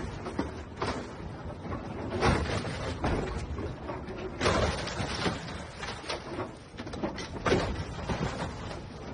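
Sheet-metal body of a metrobus crunching, scraping and banging as heavy machinery tears it apart, with irregular crashes every second or two.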